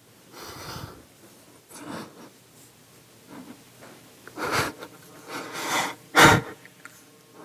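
A man sobbing with his face in his hands: several short, shaky breaths and sniffs, the loudest about six seconds in.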